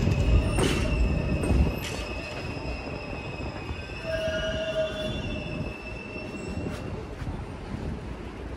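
R142-series subway train running on the rails, with a loud rumble for the first second or two that then eases off, and its wheels squealing in long, steady high tones.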